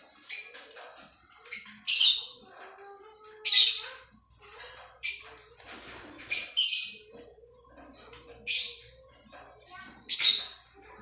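Indian ringneck parakeets squawking: about eight loud, harsh, short screeches spaced a second or two apart, over quieter chatter.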